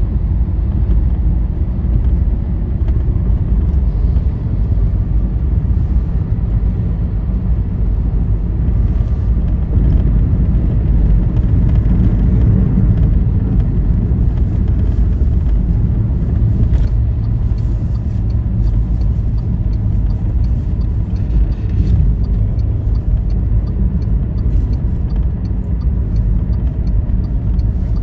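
Steady low rumble of a vehicle travelling along a highway: engine and tyre noise, with faint, regularly spaced ticking that starts about two-thirds of the way through.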